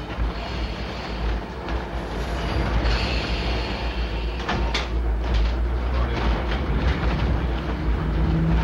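Streetcar or train running on rails: a steady rumble and rattle of wheels on track, with a faint high squeal about three seconds in and one sharp click near the five-second mark.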